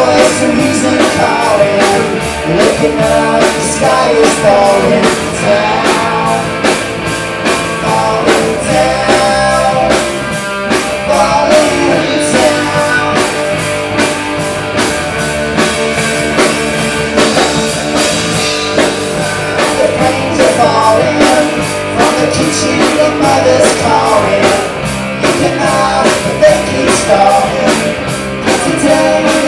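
Live rock band playing a song: electric guitar, bass guitar and a drum kit keeping a steady beat, with two singers' vocals over them.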